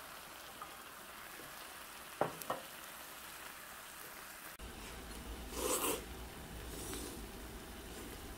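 Marinated beef short ribs and garlic cloves sizzling on a round griddle, with two sharp clicks about two seconds in and a louder short clatter about six seconds in.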